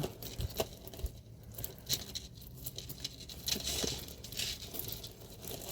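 Scattered small clicks and light rustling as hands work at detangling a metal jewelry chain.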